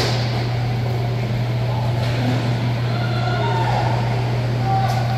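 A steady low hum fills an indoor roller hockey rink. A hockey stick cracks against the puck right at the start, and faint scrapes and clatter of play sound over the hum.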